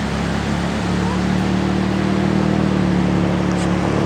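A motor engine runs steadily with a low hum over a continuous rushing noise, a little louder in the middle.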